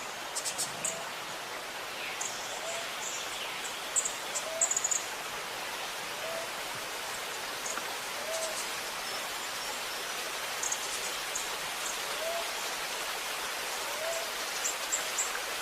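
Running water making a steady rushing, gurgling noise, with birds giving short high chirps now and then. A low, short upward-sliding call repeats about every two seconds.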